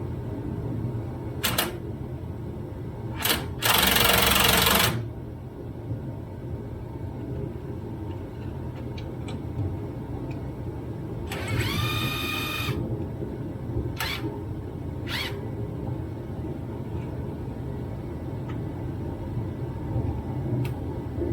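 Shop noise from rusted steel floor pan repair, heard as a steady low rumble. About four seconds in there is a loud rushing burst lasting just over a second. Near the middle a short high whine rises and then levels off, and a few sharp knocks come and go.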